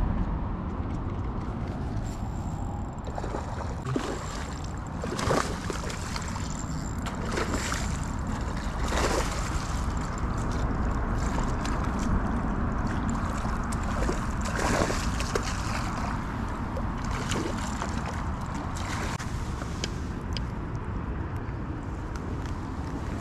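Steady low wind rumble on an action-camera microphone, with a few short sharp knocks as a spinning rod and reel are handled while a peacock bass is reeled in and landed.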